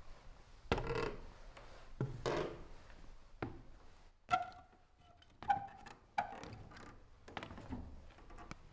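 A string of dull wooden knocks and thuds, roughly one a second, as someone moves about in the dark. Several are followed by short squeaky creaks.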